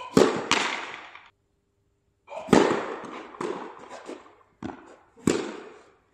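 Tennis ball being struck by rackets and bouncing on the court during a rally: sharp pops every second or so, each followed by an echoing tail.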